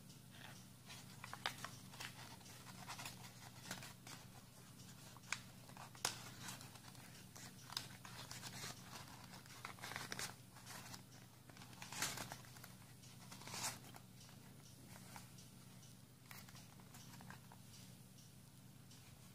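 Faint rustling and crinkling of folded paper as an origami magic rose cube is twisted and pressed by hand, with scattered light clicks and crackles.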